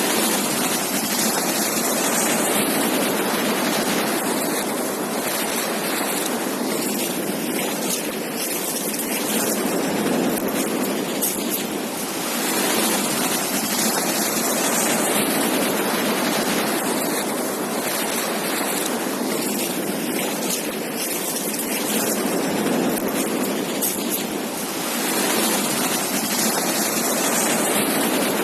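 Ocean surf breaking on a beach, a continuous wash of waves that swells and eases every few seconds, with some wind on the microphone.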